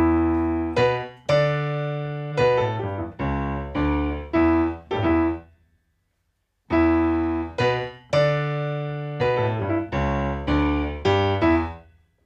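Solo piano playing a run of struck chords, each ringing and fading, in two phrases with about a second of silence between them.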